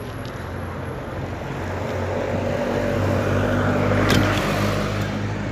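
A motor vehicle passing close by, its engine hum and tyre noise swelling to a peak about four seconds in and then fading.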